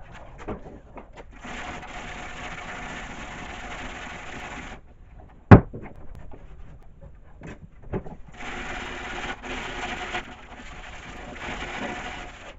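Dual-action orbital sander running against a car body panel in two runs of about three and four seconds, a steady sanding hiss with a motor hum in it. A single sharp knock sounds between the two runs.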